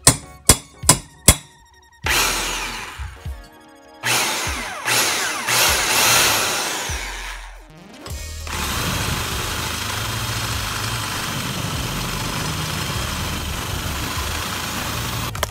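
A hammer strikes a punch four quick times on a steel exhaust downpipe to mark the spot. An electric drill then bores the hole for a wideband O2 sensor bung: two short spells with the motor speed rising and falling, then a long steady run from about eight seconds in that stops at the end.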